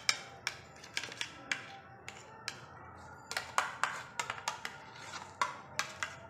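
Steel spoon clicking and scraping against a plastic tray as butter is spread over it: sharp, irregular taps about three a second, with a short pause midway.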